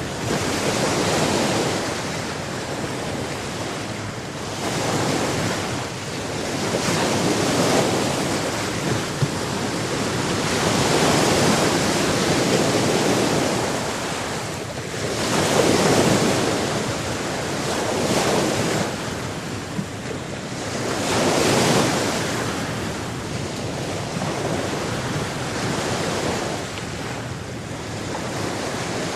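Sea waves breaking and washing on a shore, swelling and ebbing every few seconds, with some wind on the microphone.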